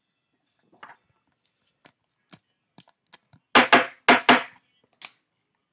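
Trading cards and a clear plastic top loader being handled on a tabletop: scattered light clicks, then four quick knocks close together about three and a half seconds in.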